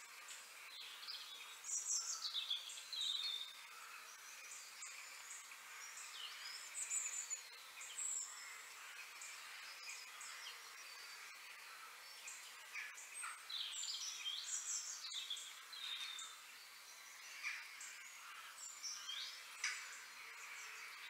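Birds chirping and calling in short, quick phrases over a steady high hiss of background noise.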